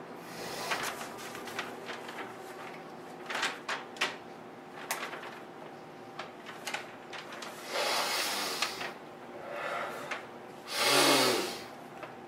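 A large sheet of stiff paper being handled and lifted: rustling and scattered light clicks, with two longer breathy rushes, the louder near the end, over a faint steady hum.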